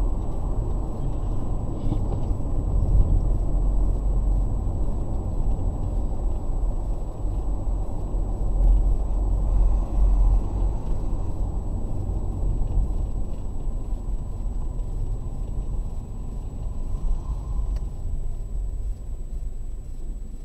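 Road and engine noise of a moving car heard from inside through a dashcam microphone: a steady low rumble that eases off near the end.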